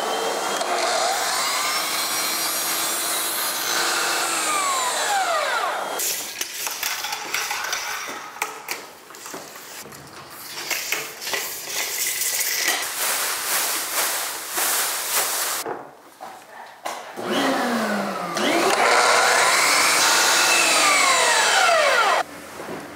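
DeWalt miter saw making two cuts. Its motor whines up, cuts and winds down at the start, then again from about seventeen seconds in, stopping abruptly near the end. In between come knocks and clatter of boards being handled.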